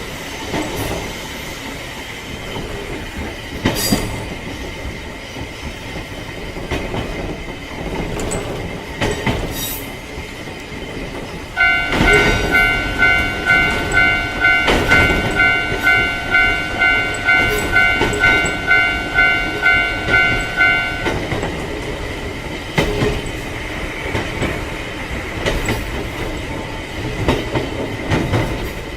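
Train sound effects: a passenger train running, with clicks of the wheels over rail joints and a steady rumble. Starting around the middle and lasting about nine seconds is a ringing tone that pulses on and off about two and a half times a second, then cuts off suddenly.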